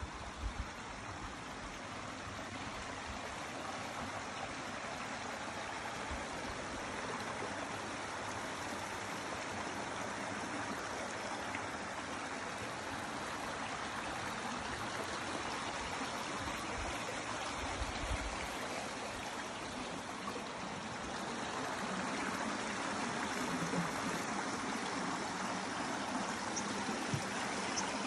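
Small rocky upland stream running, a steady rush and trickle of water that grows gradually louder, most noticeably in the last third.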